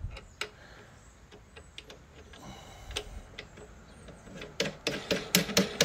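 Light clicks and taps of a bolt and a plastic handle knob being fitted to a snow blower's handle, with a quick run of sharper clicks near the end.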